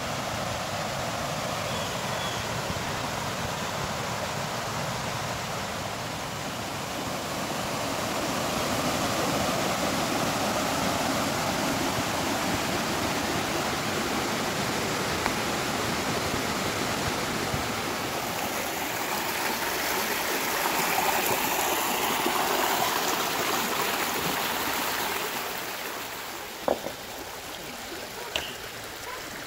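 Stream water rushing steadily. The rush grows brighter and louder past the middle, then drops back near the end, where two sharp clicks sound.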